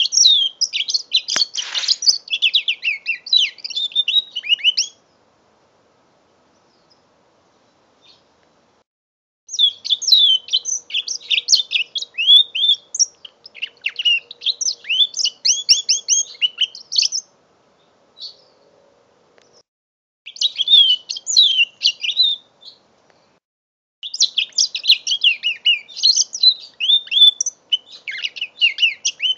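Young mule canary, a canary-finch hybrid, singing: rapid high warbling trills and chirps in four long phrases with short pauses between them.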